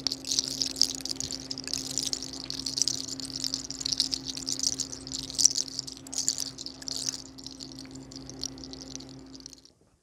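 Hands rubbing and scratching through long hair and over the scalp close to the microphone: a dense, crackly rustle with sharp crackles in it, cutting off abruptly near the end.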